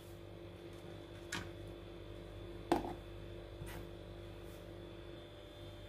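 A few light clicks of the blue plastic lid being fitted and pressed onto a steel mixer-grinder jar, three times, the second the loudest, over a faint steady hum. The grinder motor itself is not running.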